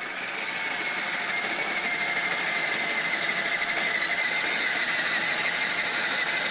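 Power drill with a long spiral auger bit boring into the soft gypsum and sandstone ceiling of an opal mine, running with a steady high whine. It is drilling a hole for a dynamite charge under the gypsum layer to reach the opal.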